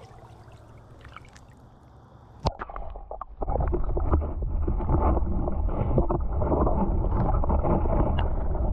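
A sharp knock about two and a half seconds in, then loud churning and sloshing of water close to the microphone, heaviest in the low end, as a caught bass is let back into the water.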